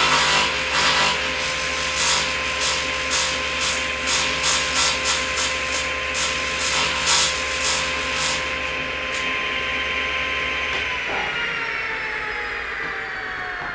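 Table saw running steadily while wood is cut in a run of short rasping strokes, about two a second, that stop after about eight seconds. About eleven seconds in the saw is switched off and its motor whine falls in pitch as the blade spins down.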